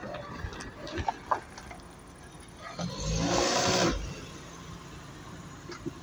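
Renault Duster's engine running, with light clicks and crunches early on and a brief surge of engine noise about three seconds in.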